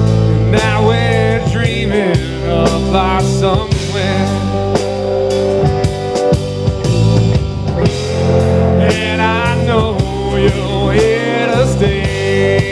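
Blues-rock band playing an instrumental passage: drum kit keeping a steady beat under bass and rhythm instruments, with a wavering, vibrato-laden lead line, most likely lead guitar, coming in about half a second in and again near the end.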